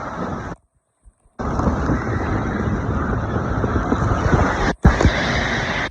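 Loud, steady rushing noise with wind buffeting the microphone. It cuts out abruptly about half a second in, returns about a second later, and drops out briefly once more near the end.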